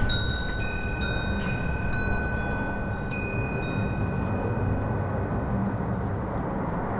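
Wind blowing with a steady low rumble while wind chimes tinkle: several chime strikes in the first three seconds, their tones ringing on and slowly fading.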